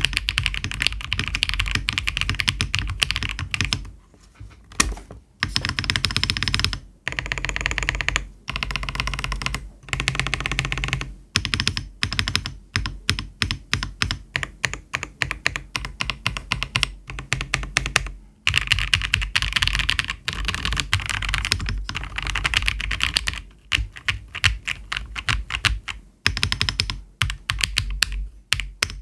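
Typing on a CIY GAS67 mechanical keyboard with Aflion Blush linear switches (polycarbonate top housing, nylon bottom, POM long stem). Fast runs of keystrokes broken by short pauses, with a stretch of slower, evenly spaced keypresses in the middle.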